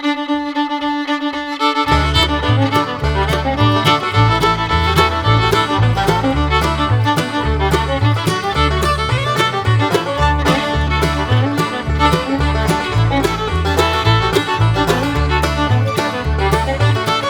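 Upbeat bluegrass-style background music with fiddle over a plucked accompaniment; a held note opens it, and a steady bass beat comes in about two seconds in.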